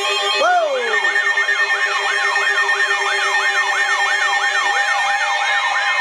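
Electronic siren in a fast yelp, sweeping up and down about three times a second. It begins with a falling glide just after the start, and steady tones run underneath.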